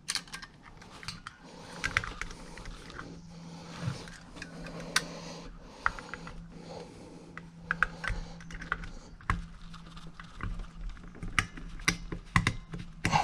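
Irregular light metallic clicks and scrapes of brake hardware being worked by hand: the shoes, springs and hold-down keepers of a VW Beetle rear drum brake being fitted onto the backing plate.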